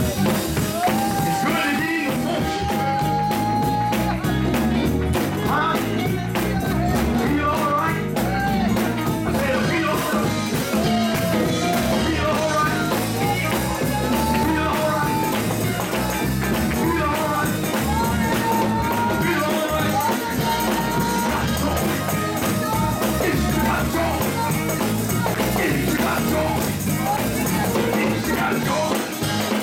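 Up-tempo gospel music from a church band, with a driving beat of drums and percussion under long held melody notes.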